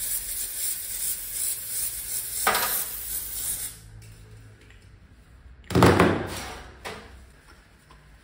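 A spraying hiss lasts about four seconds. About six seconds in comes a short loud clatter of metal parts.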